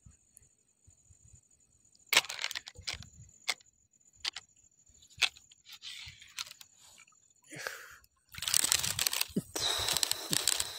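Sharp clicks and knocks heard underwater, several over a few seconds, then from about eight seconds in a loud rush of splashing water as a speared fish is lifted out of the water.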